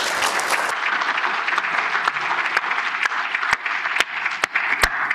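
Audience applauding steadily, with sharper single hand claps close to the microphone in the second half.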